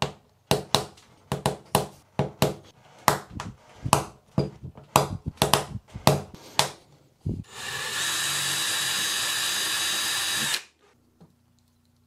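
A quick series of about fifteen sharp clicks and knocks as small 3D-printed plastic number tabs are pressure-fitted into a wooden dial ring. Near the end a small power tool runs steadily for about three seconds and cuts off suddenly.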